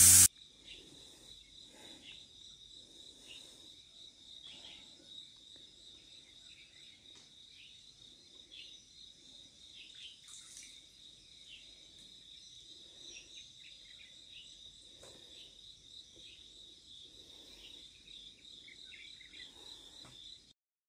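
Faint outdoor ambience: a steady high drone of insects with many short, quick bird chirps over it. A paint spray gun's hiss cuts off right at the start.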